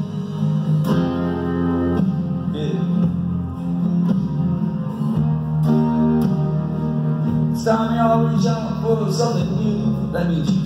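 Takamine acoustic guitar playing chords over an electronic backing track with bass, a busier run of higher melody notes entering about two-thirds of the way in.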